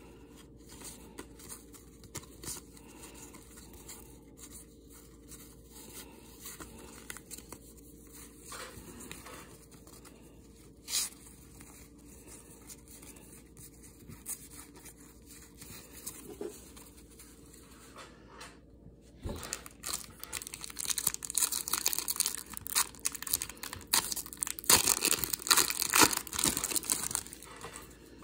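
Trading cards handled and slid against each other, with faint clicks and rustles. From about twenty seconds in, a much louder crinkling and tearing, like a card pack's wrapper being torn open.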